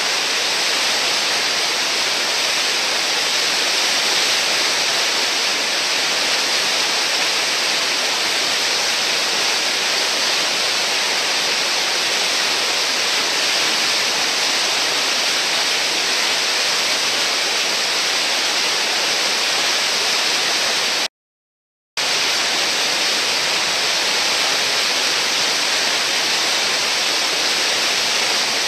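Whitewater rushing steadily through a river hole, the churning, foaming water of a standing wave. The sound cuts out to silence for under a second about three-quarters of the way in.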